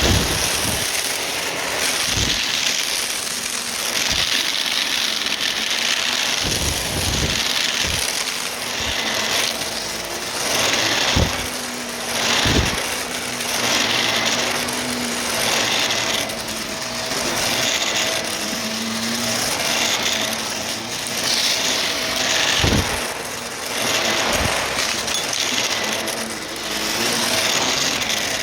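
Vacuum cleaner running with a steady motor whine, its brushroll crunching up debris as it is pushed quickly back and forth, the noise swelling and dipping with each stroke and marked by occasional low thumps.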